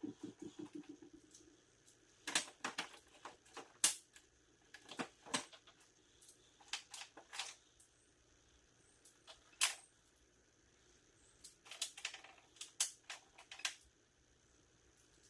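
Scattered light clicks and knocks, coming in small clusters with quiet gaps between, from parts and tools being handled while a truck is put back together.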